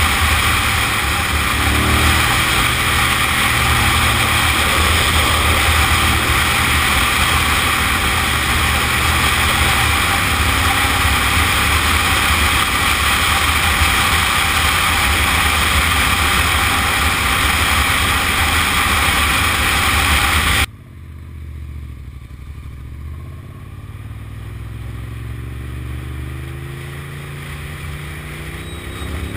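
Ducati 900SS's 90-degree L-twin engine running under ride, heavily covered by wind rushing over the camera's microphone. About two-thirds of the way through, the wind noise cuts off suddenly and the engine is heard more plainly, its pitch rising near the end as the bike accelerates.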